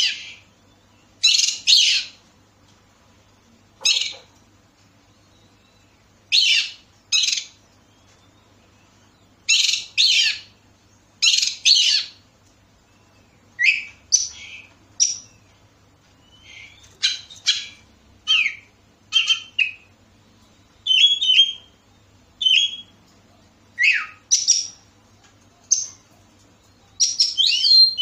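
Oriental magpie-robin calling in short bursts with pauses between: harsh, rasping notes, often in pairs, for the first half, then from about halfway clearer whistled notes and quick falling phrases.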